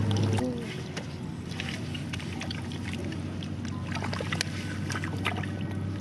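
Shallow muddy water sloshing and splashing as hands dig through mud and wet straw, with scattered short, sharp splashes. A steady low hum cuts off about half a second in.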